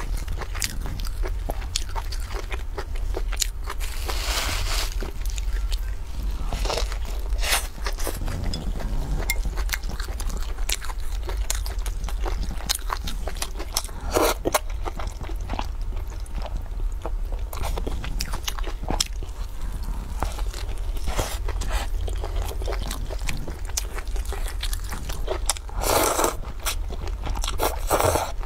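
Close-up eating sounds: crisp crunches and bites of a flaky fried flatbread, wet chewing, and several drawn-out slurps of glass noodles, with one slurp about halfway and a longer one near the end. A steady low hum lies under it all.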